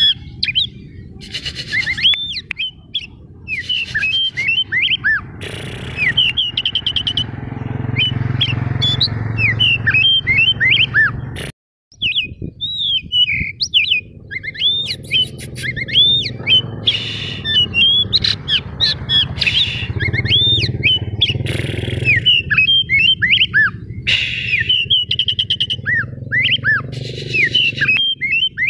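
Oriental magpie-robin (white-bellied kacer dada putih) singing a fast, unbroken run of short rising and falling whistled notes mixed with harsh chips. A low rumble runs underneath, and the song breaks off for a moment near the middle.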